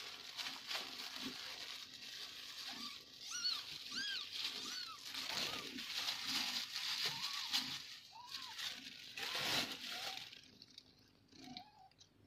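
Newborn kittens mewing in short, high, rising-and-falling squeaks, several times, amid wet licking and rustling noises.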